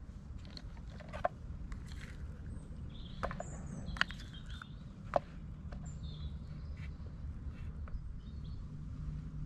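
Small sharp clicks and taps of a spoon and knife against a plastic tub and plate as hummus is spread and avocado sliced, a few clicks a second or more apart. Short bird chirps come in now and then over a steady low background rumble.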